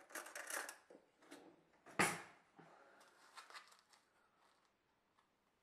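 Rustling and handling of a plastic tub of frozen parsley as the herbs are taken out and sprinkled into beaten egg in a plastic jug, with one sharp knock about two seconds in.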